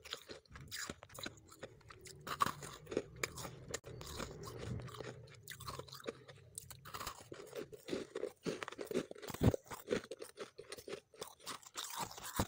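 Close-miked chewing of crunchy refrozen freezer frost: a dense, irregular run of crisp crunches.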